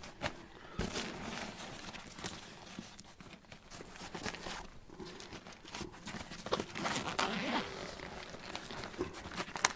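Medical pack being handled and its compartments opened: irregular rustling, scraping and sharp clicks of fabric and gear.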